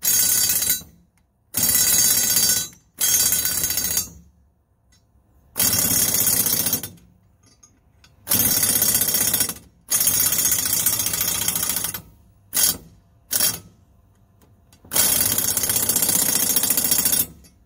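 Impact wrench hammering on the exhaust studs of a rusty cast-iron exhaust manifold, in about eight separate runs, each from a fraction of a second to two seconds long, with pauses between them. The studs are stubborn and do not want to turn.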